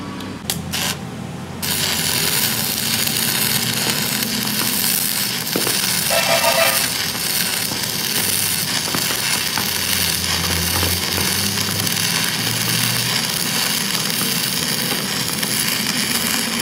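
Electric arc welding on a steel rear axle housing. After a few short clicks, a steady, dense crackle and sizzle starts about a second and a half in, with a low hum underneath.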